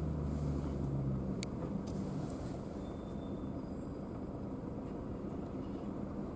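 Low steady hum of a car idling at a standstill, heard from inside the cabin, with two faint clicks about a second and a half in.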